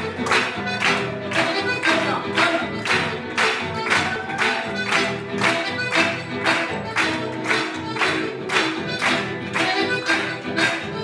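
Live chamamé played on a piano accordion and acoustic guitars: the guitars strum chords on a steady beat, about two strokes a second, under the accordion's sustained melody.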